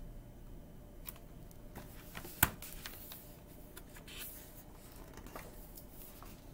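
Faint rustling and clicking of a hardcover picture book being handled and its pages turned, with one sharper tap about two and a half seconds in.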